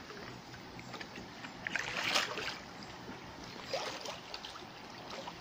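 Shallow river water flowing over stones, with irregular splashes and sloshing from someone wading in it, strongest about two seconds in and again near four seconds.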